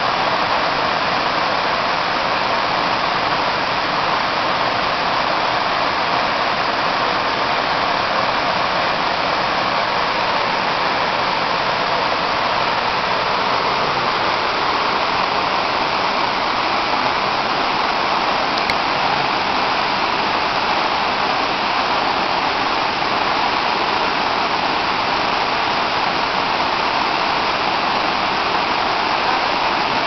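Waterfall rushing over rock: the steady, unbroken hiss of falling water.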